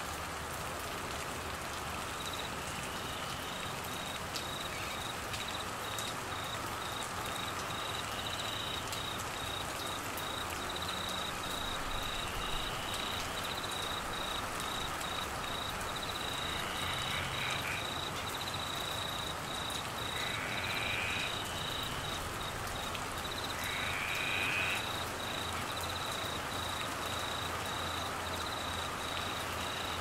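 Steady heavy rain falling on foliage and ground. Over it, a high chirp pulses fast and evenly, and a short rising call repeats every few seconds, louder in the second half.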